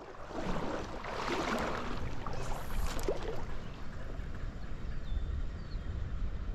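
Stream water running, with gusty wind buffeting the microphone as a low rumble.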